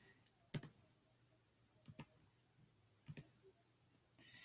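Near silence broken by three faint pairs of sharp clicks about a second and a quarter apart: clicks from the computer making the screen recording.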